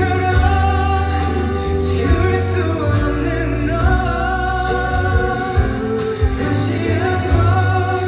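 A male vocalist singing live into a handheld microphone over instrumental accompaniment with a strong, steady bass.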